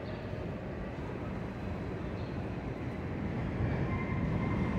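New York City subway train on the elevated IRT White Plains Road Line, rumbling and growing steadily louder as it approaches the station. A faint high wheel squeal joins near the end.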